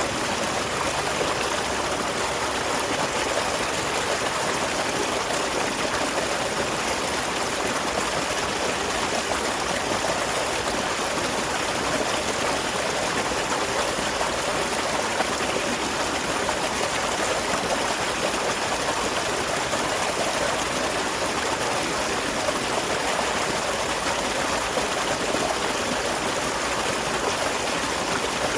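Small waterfall splashing and a stream running steadily, with no change throughout.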